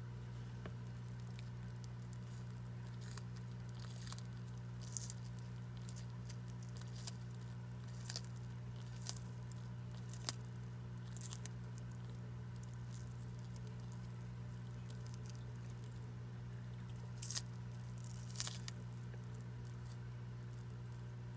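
Horsfield's tortoise biting and tearing a hand-held leafy green, making short crisp crunches and snips in three spells. A steady low hum runs underneath.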